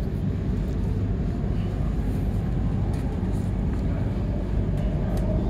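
Running noise heard inside the carriage of a Melbourne HCMT electric suburban train travelling at speed: a steady low rumble of wheels and running gear, with a few faint clicks and a faint whine coming in near the end.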